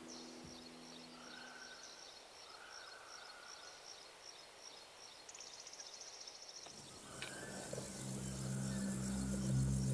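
Quiet countryside ambience: small birds chirp repeatedly and high, and about five seconds in a dense insect-like trill buzzes for a second or so. In the last three seconds a low steady hum fades in and becomes the loudest sound.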